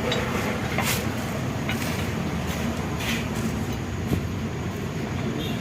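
Steady low mechanical rumble, like an engine or vehicle running close by, with several short sharp clicks of small metal parts being handled.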